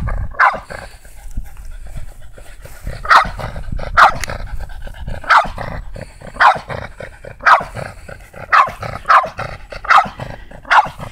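French bulldog barking at a crab in short, sharp single barks, about ten over the stretch at irregular spacing.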